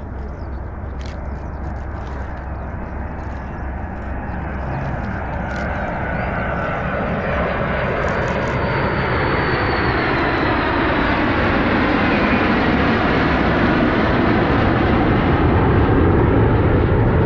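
Formation of Mitsubishi F-2 fighter jets flying over, their jet engine noise growing steadily louder as they approach, with a faint falling whine about halfway through.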